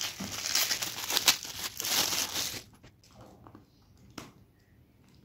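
Metallic foil gift wrap crinkling and tearing as it is pulled off a small box, for about two and a half seconds. Then it goes quiet, with a single click about four seconds in.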